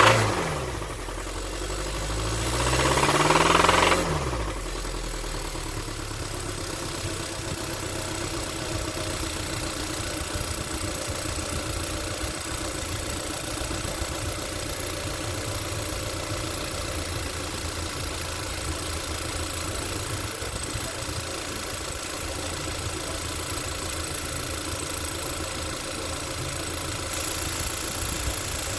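Car engine revved: it falls back right at the start, climbs again over the next few seconds and drops about four seconds in, then idles steadily with an even low pulsing. It is the 'bad sound' the car is being recorded for, though what the fault is cannot be told.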